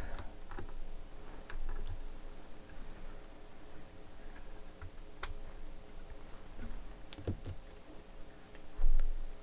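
Scattered small plastic clicks and scrapes as an old nickel-cadmium battery pack is pried and lifted out of a Fluke 123 ScopeMeter's plastic battery compartment, with a louder dull bump near the end.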